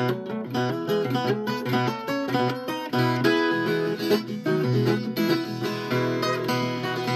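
Viola caipira, the Brazilian ten-string folk guitar, playing an instrumental passage of quick plucked notes and runs.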